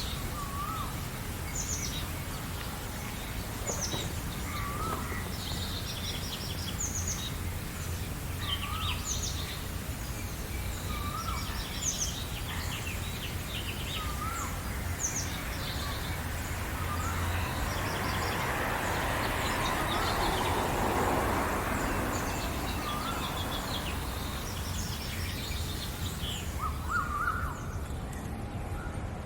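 Several wild birds singing and chirping in a spring morning chorus, with high quick chirps and one bird repeating a short swooping call about every two seconds. A steady low rumble lies underneath, and a broad rushing noise swells and fades in the middle.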